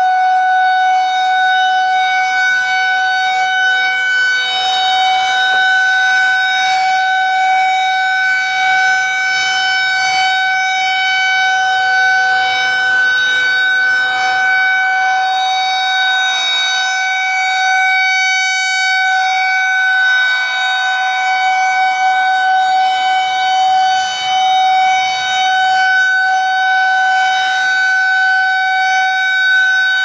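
Federal Signal 2001-SRNB rotating outdoor warning siren sounding a steady, unwavering alert tone at full speed during its monthly test. Its loudness swells and dips slightly as the horn turns toward and away from the listener.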